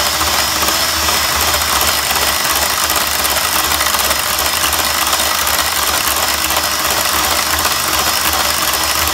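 Electric hand mixer running steadily, its beaters whisking stiff egg whites into a creamed butter, sugar and egg-yolk cake batter in a glass bowl.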